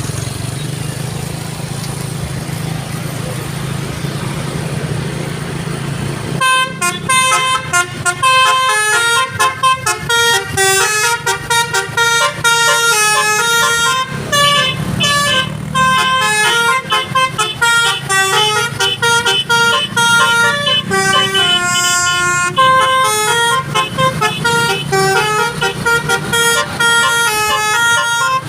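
A low steady hum, then about six seconds in a Basuri telolet horn starts playing a fast melody of short stepped notes that runs on without pause.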